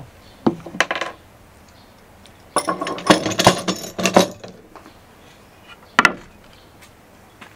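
Steel clamps clinking and clattering against each other as they are set down on a wooden tabletop, a busy rattle of metal lasting nearly two seconds in the middle. A couple of light knocks on the wood come before it, and a single knock near the end.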